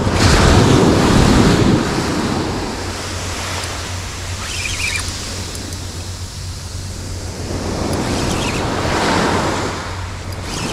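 Surf breaking and washing up the beach, two surges: a loud one about a second in and another around nine seconds, with wind buffeting the microphone.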